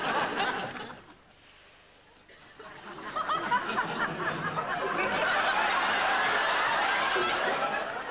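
A studio audience laughing, swelling up about three seconds in and carrying on steadily.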